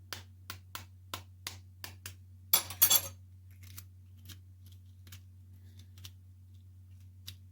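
Boiled egg's shell tapped repeatedly on a hard surface, about three sharp taps a second, cracking it, then a short crackling burst as the shell breaks up, followed by a few faint ticks.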